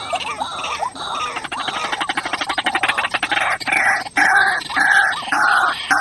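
White-breasted waterhen calling: a fast rattling run of notes, then loud, harsh repeated calls at about three a second through the second half.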